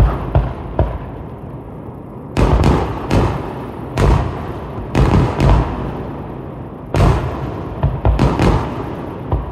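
Aerial firework shells bursting: about a dozen sharp booms, some in quick pairs or clusters, each trailing off in a rolling echo.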